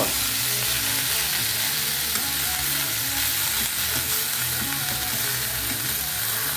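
Ground beef sizzling steadily as it fries in a hot pot, stirred and pushed around with a spatula.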